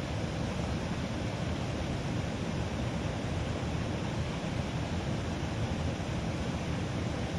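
Steady rushing of water pouring out of a drainage outlet into a ditch.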